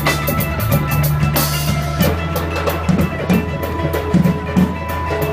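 Live street band playing: acoustic guitars and sustained bass notes under a steady drum beat.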